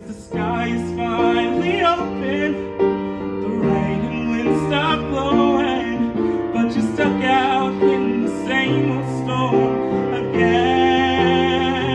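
A young man singing a solo with vibrato over a piano accompaniment.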